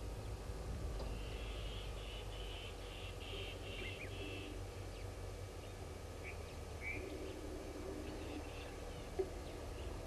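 Wild birds calling: a rapid run of chattering notes lasting about three seconds, then a few short separate chirps, over a low steady background rumble. A single brief knock sounds near the end.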